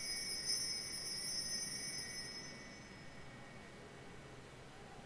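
Altar bells rung at the elevation of the host during the consecration. There is a fresh ring about half a second in, then the bright ringing dies away over the next few seconds.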